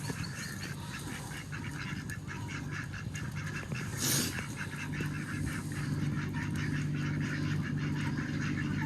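A group of crested ducks quacking in a fast, continuous run of short calls. A steady low hum joins about halfway through.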